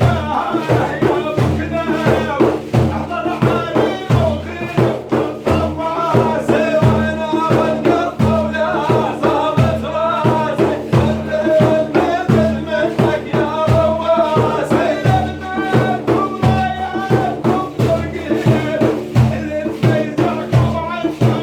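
Sufi dhikr chanting led by a man's voice over drums beating a steady, even rhythm.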